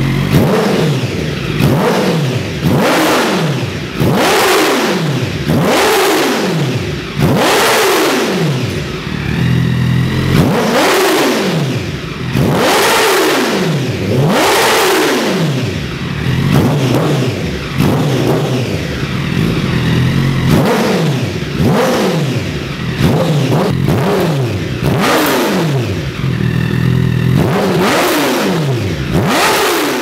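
Honda CBR1000RR inline-four through an Akrapovič slip-on exhaust, free-revved on the stand. It gives sharp throttle blips about once a second, each climbing quickly and then dropping back to idle, with a few held a little longer.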